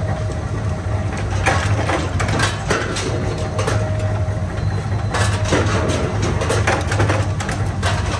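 Forming press running with a steady low hum, with irregular metallic clanks and scrapes as red-hot steel cultivator blades are handled with tongs on its bending die.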